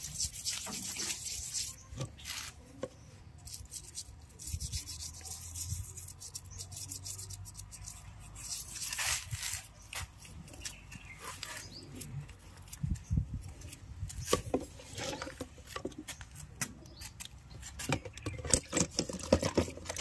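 A toothbrush scrubbing a Hero Passion Pro motorcycle's small steel drive sprocket clean of grime: irregular scratchy brushing strokes with a few sharper knocks.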